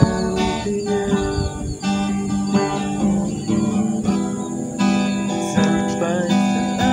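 Acoustic guitar strumming chords, an instrumental passage without singing.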